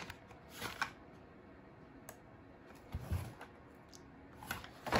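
Faint handling noises of a blister-packed toy car: a few scattered clicks and rustles, with a soft low thump about three seconds in.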